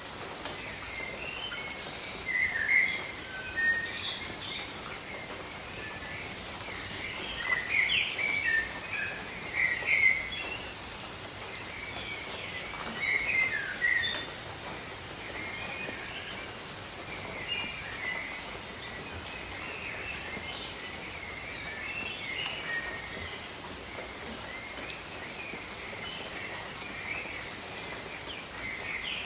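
Steady patter of gentle rain on garden leaves, with small birds chirping and trilling through it. The bird calls are thickest in the first half and thin out toward the end.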